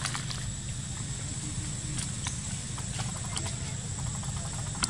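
Scattered light crunches and ticks of movement through dry leaf litter, the sharpest one near the end, over a steady low rumble and a faint, steady high-pitched whine.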